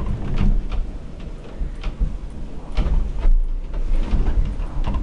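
A door rattling and knocking in its frame again and again at an uneven rate, shaken by hurricane wind, over a low rumble.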